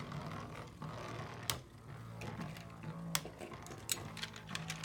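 Two spinning Beyblade tops whirring in a plastic stadium, with a low steady hum and a few sharp clicks as they strike each other and the stadium wall.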